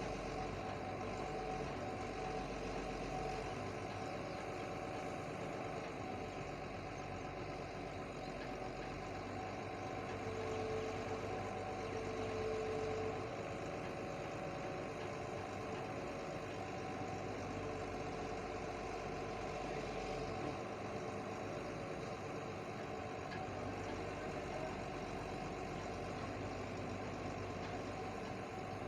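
The engine of a heavy machine, such as an earth-moving machine clearing a site, running steadily at an even speed.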